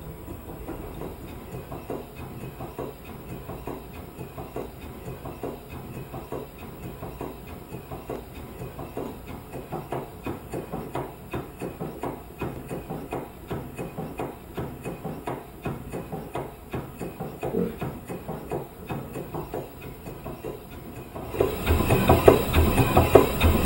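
Scale model of Ericsson's vibrating-lever steam engine from the USS Monitor running, its levers, crank and linkages making a quick, even clatter of knocks. The clatter gets suddenly louder about 21 seconds in.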